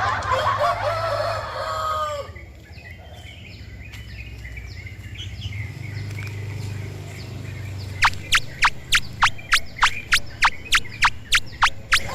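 A rooster crowing, its call ending with a falling note about two seconds in. About eight seconds in, a fast run of short rising chirps starts, about four a second.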